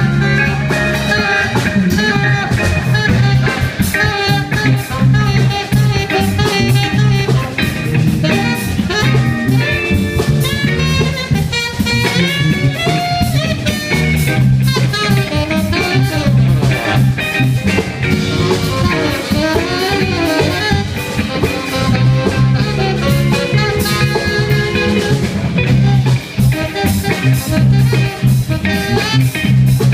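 Small live jazz combo playing a swing tune: saxophone, electric guitar, bass guitar and drum kit together.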